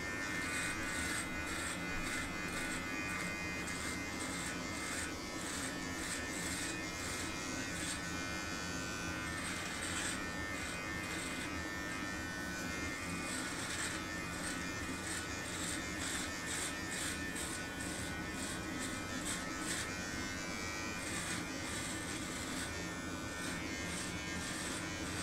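Manscaped Lawn Mower 4.0 electric body trimmer running with a steady buzz while it is drawn over chest hair.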